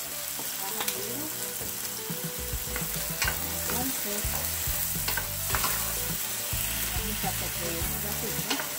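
Diced onion, bell pepper and tomato sizzling in olive oil in a nonstick frying pan, a steady hiss. A couple of seconds in, a wooden spoon starts stirring the vegetables, with scattered clicks and scrapes against the pan.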